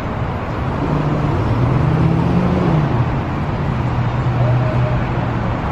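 Street traffic with a car engine running close by. The engine's low hum rises a little about two seconds in, then settles into a steady drone.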